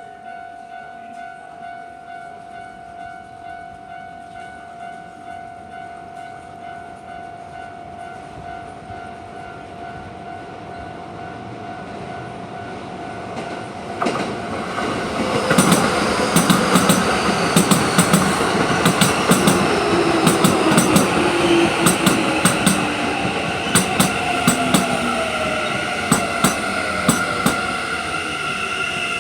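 Level crossing alarm ringing in a steady, even repeating tone, then a Keikyu New 1000 series electric train approaches and passes about halfway through. It passes with loud, repeated wheel clacks over the rail joints and a whine that slowly falls in pitch.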